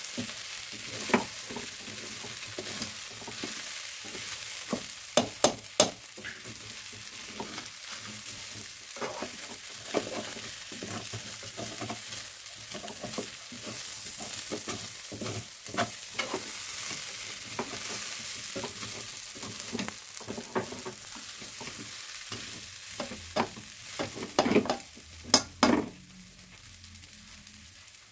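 Rice and chicken feet sizzling in a metal pot while being stirred with a plastic spoon, the spoon scraping and knocking against the pot over and over. A cluster of louder knocks comes near the end, after which the sizzling is quieter.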